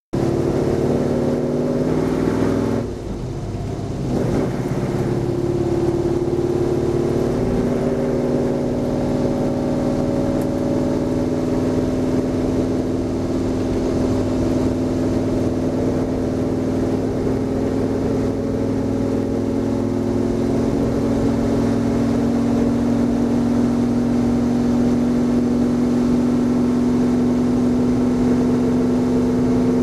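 Stock car's V8 engine running hard at speed on a race track, heard from inside the car. The engine note dips briefly about three seconds in, then climbs back and holds steady.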